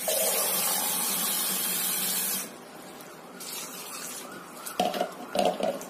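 Water running from a tap into a bowl of cut broccoli, shut off about two and a half seconds in. A few short knocks follow near the end.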